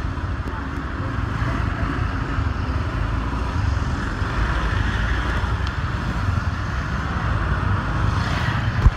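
Motorbike and surrounding street traffic running in dense city traffic, heard from the bike: a steady low engine rumble with a hiss of traffic noise, and one short thump near the end.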